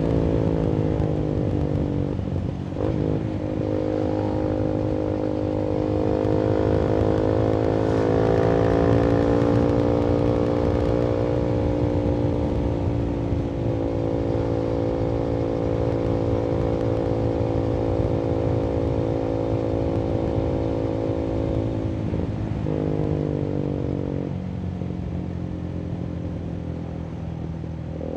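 Voge 300AC single-cylinder motorcycle engine through a free-flowing full-system aftermarket exhaust, under way: a break and change in pitch about three seconds in, then a long steady cruising note. Around two thirds of the way through the note breaks and drops as the bike slows, and it picks up again at the very end.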